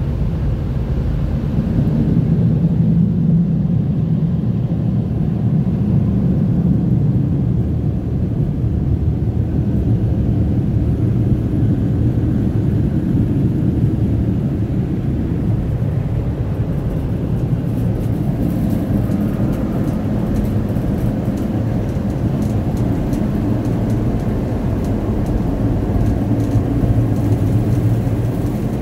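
Wash World high-velocity car wash dryer blowing air over the van, a loud, steady rush of air heard from inside the vehicle.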